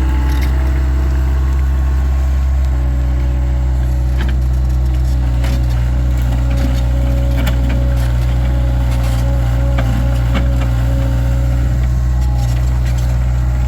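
Takeuchi TL26 skid steer's diesel engine running steadily under work, with a faint steady whine over it. A few sharp knocks and clacks are scattered through, about four to ten seconds in.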